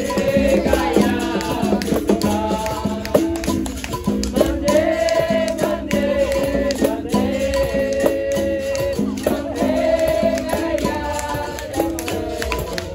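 Capoeira roda music: berimbaus playing a rhythm that switches between two low notes, with rattling percussion and voices singing.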